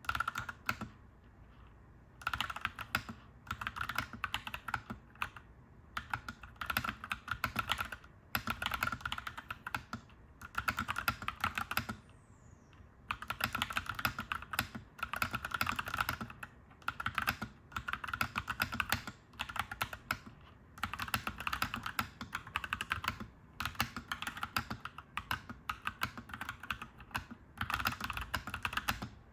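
Clacky mechanical keyboard being typed on in quick bursts of rapid keystrokes, separated by short pauses, over a faint steady low hum.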